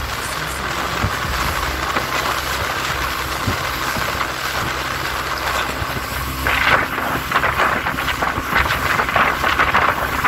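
Outboard motor of a small open boat running steadily under way, with wind on the microphone and water rushing along the hull; the water noise surges louder about two-thirds of the way in.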